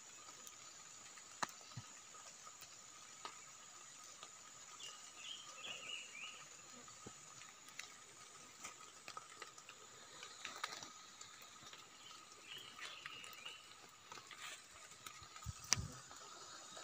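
Faint scratching and small clicks of hands digging a cluster of wild mushrooms out of the soil, with short bird chirps twice, about five seconds in and again past the middle.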